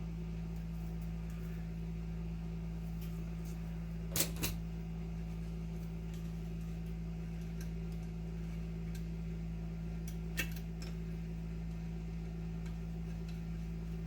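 Steady low hum, with a few sharp clicks from handling wires and small tools during electrical wiring: a pair about four seconds in, another about ten seconds in, and some fainter ticks.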